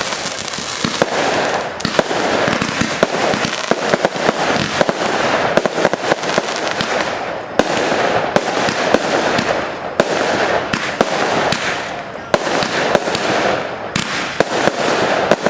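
Fireworks finale barrage: continuous crackling packed with sharp bangs, several reports a second with no pause.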